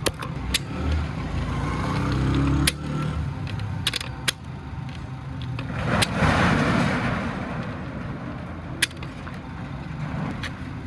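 Workshop sounds during an engine rebuild: a handful of sharp clicks and knocks, like tools and metal parts being handled, over a low rumble, with a rushing noise that swells about six seconds in and fades.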